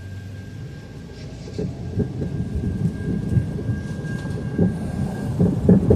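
Train rolling past with a low rumble that grows louder, and irregular clanks and knocks from the wheels and couplings coming more often as it nears.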